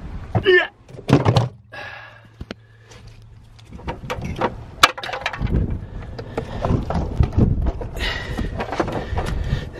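Car battery being set into its tray and handled: a thud about a second in, then scattered knocks and clicks, one sharp click near the middle, and rustling handling noise in the later seconds.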